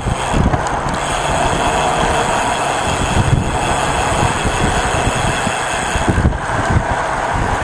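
Wind rushing over a bike-mounted camera's microphone while riding at speed, with tyre and road noise and a few low buffeting gusts.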